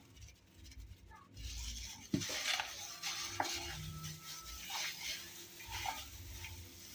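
A spoon scraping and clicking against a small dish as turmeric powder is spooned out over raw pork ribs, starting about a second in with soft scratchy sounds and a few sharp clicks.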